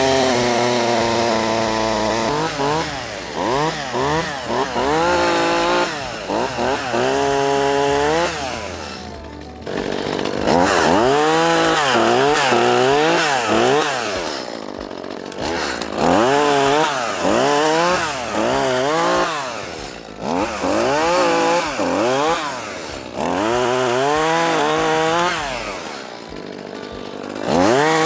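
Small Echo gas chainsaw cutting through piled limbs, revving up and down again and again, its pitch rising and falling with each cut. It drops back briefly to a low idle a few times between bursts.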